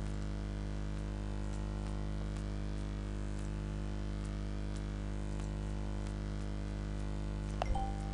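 Steady electrical hum and hiss from a computer recording setup, with a few faint computer-mouse clicks and a brief louder click near the end.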